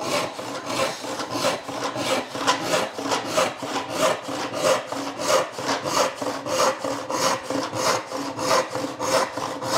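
Hand panel saw cutting dry wood in a steady, even rhythm of back-and-forth strokes.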